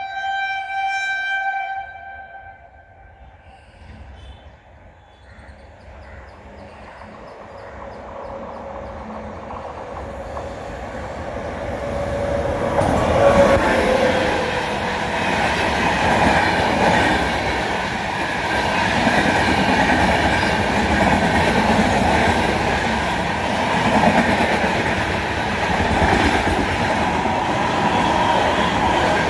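An Indian Railways express train's locomotive horn sounds and cuts off about two seconds in. The train's rumble then builds as it approaches, and a tone drops in pitch as the locomotive goes by. From about halfway the train passes at speed, with loud, steady wheel clatter on the rails.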